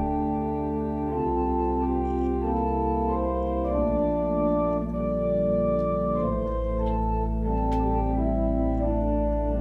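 Organ music: slow sustained chords that change every second or so over long-held bass notes.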